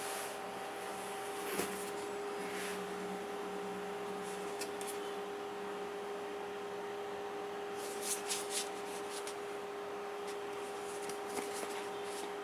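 Steady electrical hum at two pitches over a faint hiss, with a few light clicks and rustles from handling here and there.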